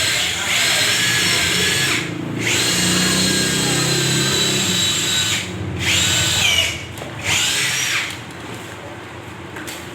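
Power drill running in several bursts with short pauses between, its high whine dropping in pitch as it slows at the end of bursts, then stopping about eight seconds in.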